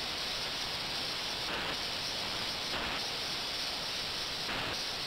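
Ultrasonic cleaning tank with 28 kHz and 72 kHz transducers running, giving a steady hiss from its agitated, circulating water that swells a little in level now and then.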